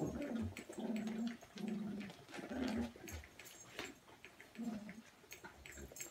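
Cockalier puppies growling in play: five short, low growls, four close together in the first three seconds and one more near the end, with claws and toys clicking on the hard floor.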